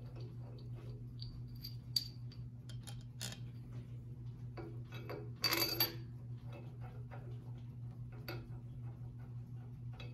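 Steel head bolts being set into a cast-iron cylinder head and turned in by hand, giving light metallic clicks and taps, with a brief louder clatter of metal about halfway through. A steady low hum runs underneath.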